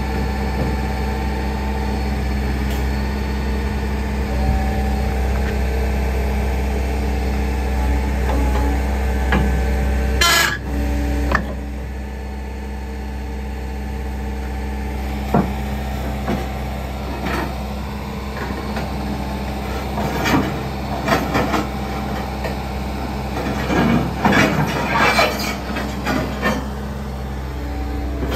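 Mecalac 6MCR's diesel engine idling steadily while its hydraulic pin-grabber quick coupler is worked, with scattered metallic clicks and knocks, most of them bunched in the second half.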